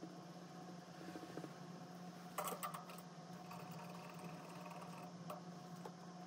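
Steady low hum of quiet room tone, with a short cluster of light clicks and knocks about two and a half seconds in and one more click a little past five seconds.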